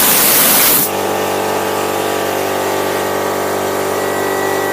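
Compressed air hissing from an air-compressor blow nozzle, cutting off sharply just under a second in. After it comes the steady hum of the air compressor's motor running at a fixed pitch.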